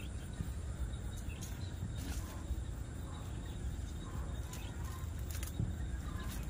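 Steady outdoor background noise with a low rumble, and a few short, faint high-pitched ticks scattered through it.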